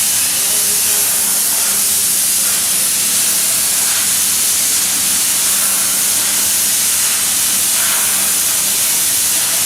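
CNC plasma cutter's torch cutting sheet metal: a loud, steady hiss from the plasma arc and its air jet, with a low steady hum underneath.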